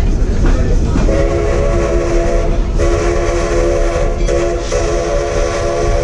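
Narrow-gauge steam locomotive's chime whistle blowing a chord of several tones in a few long blasts, starting about a second in, over the low rumble of the moving train.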